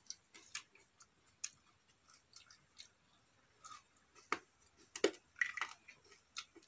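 Faint clinks and scrapes of a spoon in a steel bowl as soaked-chickpea salad is mixed and eaten, with quiet chewing. The sharpest clinks come a little past four seconds and again around five seconds.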